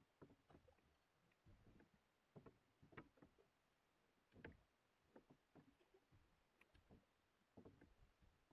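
Faint knocks and clunks of long wooden sweeps (oars) working in their rowlocks as a small wooden sailing dinghy is rowed, in small clusters every second or so with each stroke.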